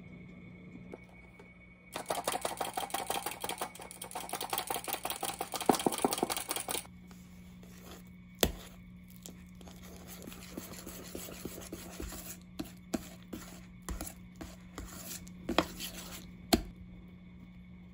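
Wire whisk beating softened butter in a stainless steel mixing bowl: fast scraping strokes for about five seconds starting two seconds in, then slower stirring with several sharp clinks of the whisk against the bowl.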